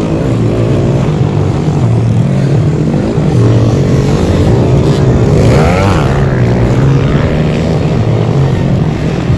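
Motocross dirt bike engines running hard at high revs, a steady loud buzz, with one engine's pitch sweeping up sharply about six seconds in as a bike accelerates.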